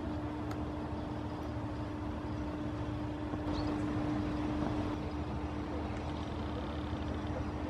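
Steady low rumble with a constant hum, like a motor running, with a brief faint high chirp about three and a half seconds in.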